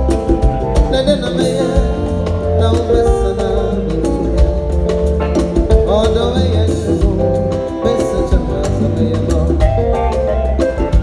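Live band music: drum kit and bass guitar with a hand drum, and a man singing over it.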